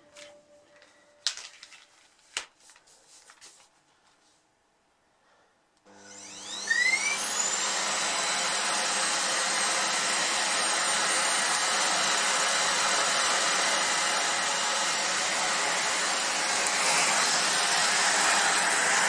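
A few faint clicks, then a vacuum cleaner is switched on about six seconds in: its motor whine rises as it spins up and settles into a steady run, powering the reassembled power-brush head.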